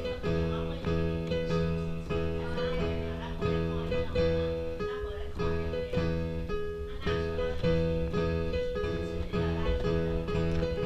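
Background music led by plucked guitar, with a steady rhythm of notes.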